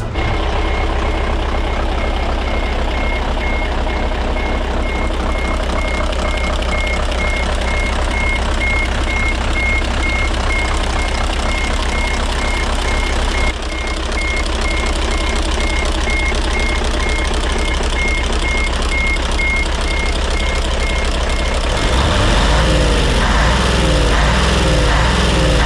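Hino Profia dump truck's V8 diesel engine running steadily, with a single-pitched warning beep repeating about twice a second. The beeping stops about 22 seconds in, and the engine gets louder.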